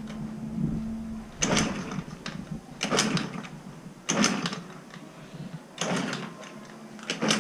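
Yamaha Jog scooter's two-stroke engine being cranked over in about five short start attempts, roughly one every second and a half, without settling into a run. The engine has sat unstarted for over two months.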